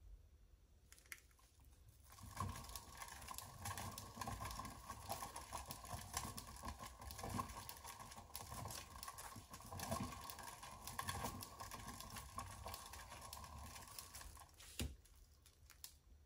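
A flat spreader scraping and smearing wet acrylic paint around a round canvas: a faint, scratchy rasp full of small ticks that starts about two seconds in and stops near the end with a single sharp click.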